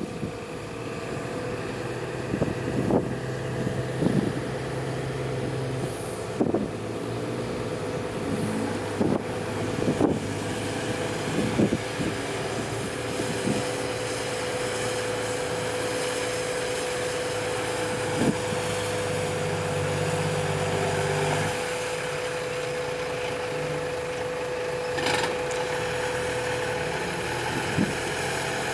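Diesel engine of a CAT 320D hydraulic excavator running steadily under load with a held whine, as it digs and moves soil. About ten scattered knocks and clanks from the bucket working the dirt sound over it. A dump truck's diesel idles alongside.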